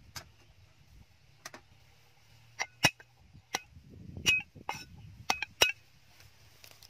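Cleaver blade knocking on a wooden chopping board while cutting garlic cloves: irregular sharp knocks, some with a brief metallic ring, and a duller, longer crunch about four seconds in.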